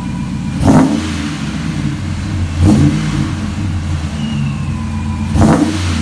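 Ram 1500's Hemi V8, fitted with JBA shorty headers on the stock Y-pipe, idling and blipped three times in short revs, heard at the tailpipe.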